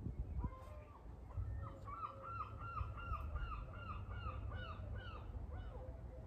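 A bird calling a fast series of short, repeated notes, about four a second, that starts about half a second in and stops just before the end.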